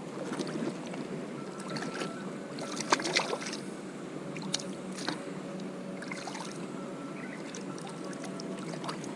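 Water splashing and dripping as a hand dips and stirs in pond water at the edge, with the sharpest splashes about three seconds in and a few smaller ones later.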